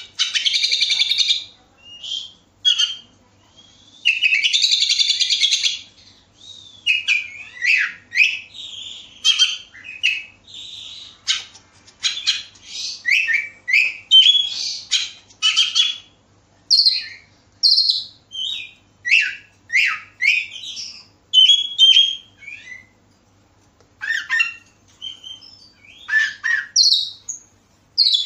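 Oriental magpie-robin singing. It opens with two long harsh rasping calls in the first six seconds, then a run of short loud whistled notes, many sliding down in pitch, separated by brief pauses.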